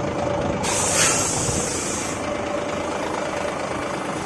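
Heavy engine running steadily, with a sharp click and a burst of hissing air lasting about a second and a half, starting just under a second in.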